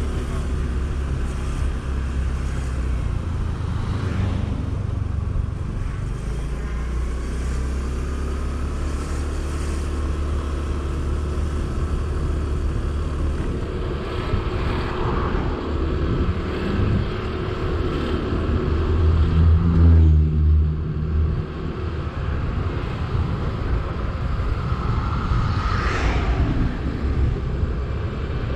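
Yamaha Neo scooter's engine running on the road, steady for most of the stretch. It revs up and grows louder about two-thirds of the way through, then drops off suddenly. A short higher-pitched sound comes near the end.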